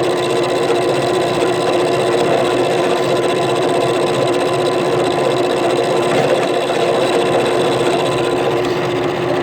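Drill press running steadily, fed slowly as it machines a slot in a galvanized steel tie, with a steady motor hum and no breaks.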